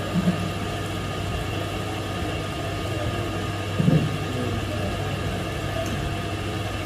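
Metal lathe running with a steady low hum, with a single short knock about four seconds in as the chuck and workpiece are handled.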